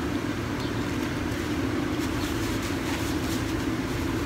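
Steady low hum and rumble of city background noise, with faint chewing sounds.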